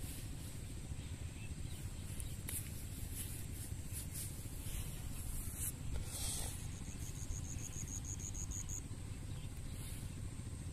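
Outdoor ambience: a steady low rumble and high hiss. Midway, a rapid, evenly spaced high ticking trill runs for about two seconds.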